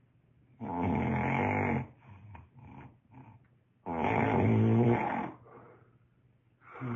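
A man snoring: two long, loud snores about three seconds apart, each lasting over a second, with faint breathing between them, and a third snore beginning near the end.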